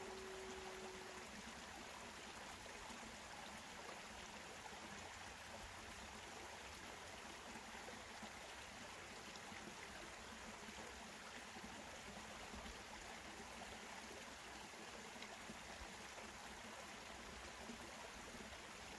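A held Native American flute note ends about a second in, followed by a faint, steady rush of running water.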